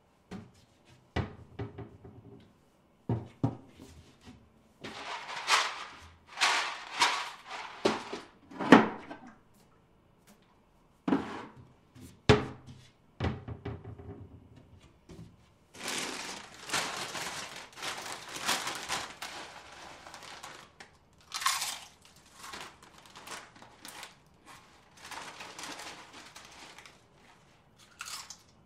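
Kitchen foley of moves around a sink and cupboard: a string of cupboard-door thunks and knocks, with longer stretches of noisy handling in between.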